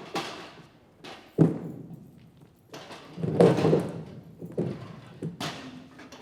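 A series of thuds and knocks, about half a dozen separate impacts, each with a short ring after it. The loudest come about a second and a half in and in a cluster near the middle.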